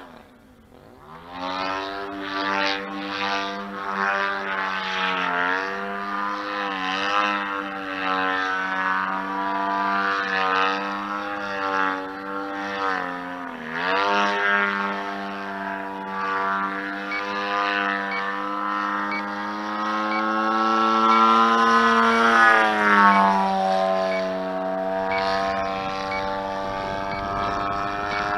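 DLE-111 twin-cylinder two-stroke gasoline engine of a large radio-controlled aerobatic plane flying overhead. The engine note goes nearly quiet briefly at the start, then rises and falls with throttle and passes. Its pitch dips sharply three times and settles lower near the end.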